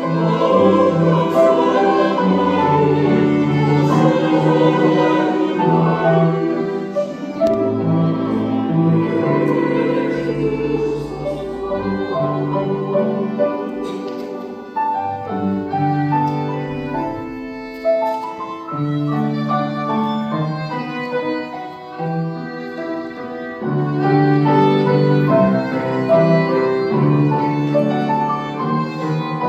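Church choir singing an anthem, accompanied by piano and violin.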